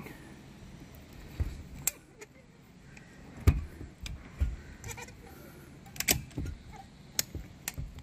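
Caulking gun pumping thick window-weld urethane from a cartridge into a broken door pull handle: irregular sharp clicks and soft knocks, roughly one a second, from the gun and the handled plastic trim.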